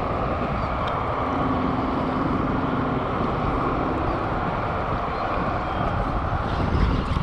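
Steady engine rumble with a low hum that comes and goes, over a constant rushing noise.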